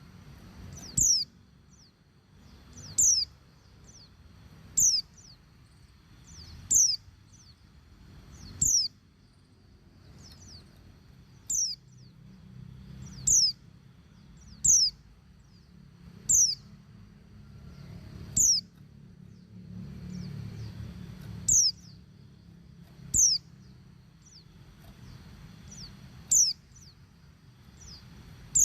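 Female white-eye (pleci) calling: a short, high, sharp note that sweeps downward in pitch, repeated every two seconds or so. It is a female's call to a male.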